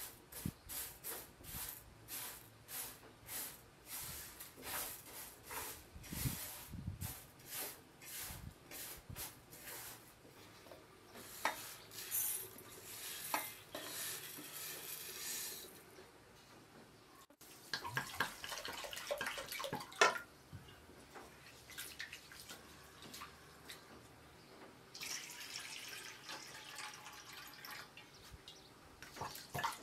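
Raw rice grains worked across a metal tray in a steady rhythm, about two strokes a second, then a longer hiss as the rice slides off the tray into a ceramic bowl. Later, rice and water pour and slosh in a metal basin as the rice is washed.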